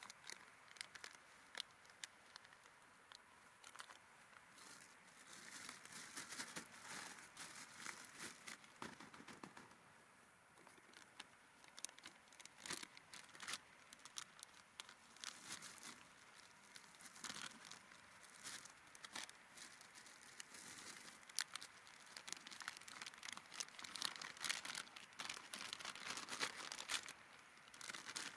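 Faint crinkly rustling with scattered sharp clicks, coming in uneven bursts that grow busier in the second half.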